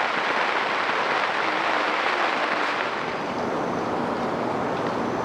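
Heavy rain falling steadily on a tent and its tarp, a dense even hiss that softens slightly about three seconds in.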